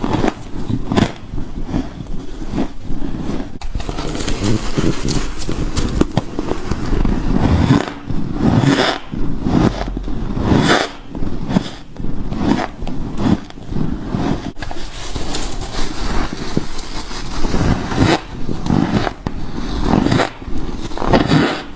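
Close-up crunching of freezer frost being bitten and chewed, a continuous run of irregular crunches, played back slowed down so they sound deep and drawn out.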